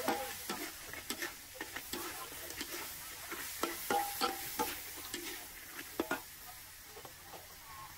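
Utensil clinking and knocking against a pan or wok while food is stirred, with several irregular clicks a second over a faint sizzle of frying.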